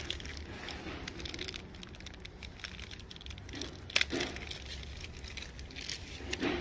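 Faint rustling and handling noises, with one sharp click about four seconds in.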